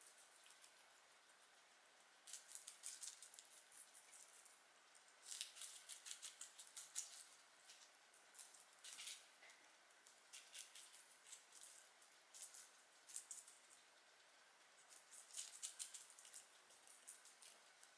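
Guinea pigs chewing lettuce and carrot: faint, quick crisp crunching clicks in spells of a second or two, with short pauses between.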